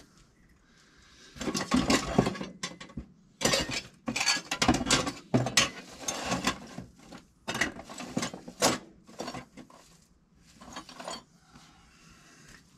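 Hand ratchet wrench clicking in several short runs, the pawl ratcheting as a fastener is turned by hand. The runs stop and start over several seconds, with a fainter one near the end.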